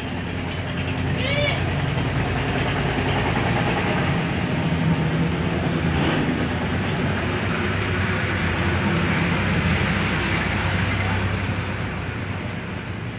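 A motor vehicle's engine running: a steady low engine hum under a broad rush of noise, swelling over the first couple of seconds and easing off near the end.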